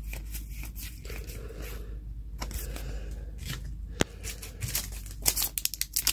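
Pokémon trading cards being slid and laid down, with a sharp click about four seconds in; near the end a sealed foil booster pack crinkles as it is handled.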